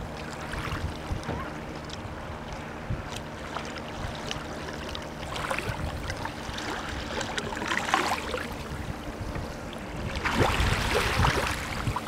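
Small waves lapping and washing up a sandy beach, with a few soft swishes of water and a louder wash about ten seconds in, over a low steady hum.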